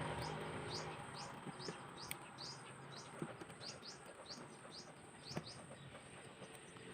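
A small bird chirping over and over, short high chirps about two or three a second, with a few faint taps among them.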